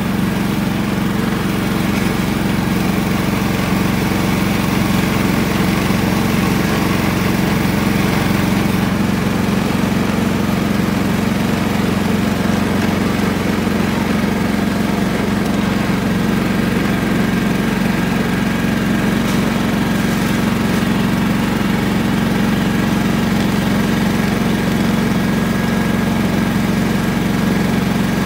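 Riding lawn mower engine running steadily, a loud, even drone with no changes in speed.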